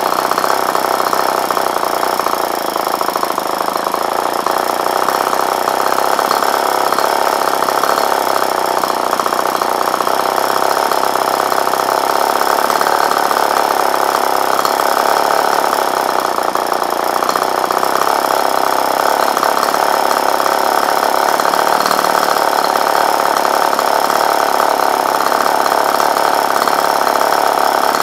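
Tartan 22 cc two-stroke model engine, converted to spark ignition, running steadily on a test stand and turning a propeller.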